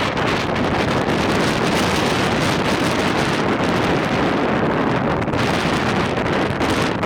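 Strong wind buffeting the microphone: a loud, steady rushing roar.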